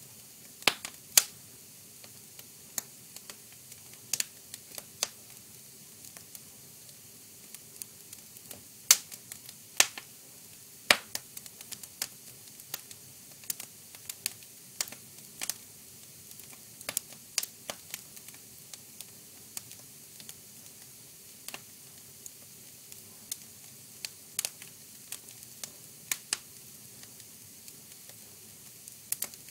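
Wood fire crackling: irregular sharp pops and snaps, a few louder cracks among many small ones, over a faint steady hiss.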